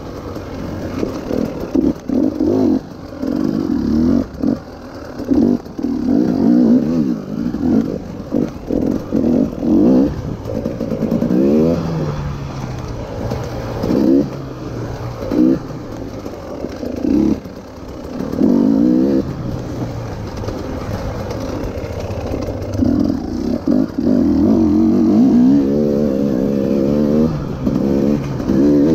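KTM EXC 300 TPI two-stroke enduro engine with an FMF exhaust, revved up and shut off over and over: many short throttle blips and rising pulls, with a longer sustained run of revs near the end.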